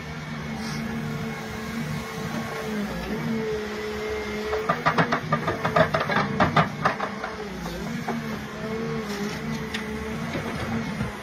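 Excavator carrying a Groeneveldt stump shear, its engine running with a wavering whine that rises and falls as the shear works. About halfway through comes a rapid run of sharp cracks and knocks lasting a couple of seconds, the loudest part.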